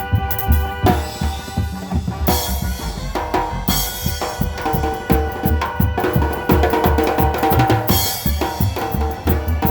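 Drum kit played to a steady beat of kick drum and snare, with cymbal crashes about a second in, a little after two seconds, near four seconds and again near eight seconds. Sustained pitched chords from other instruments play along.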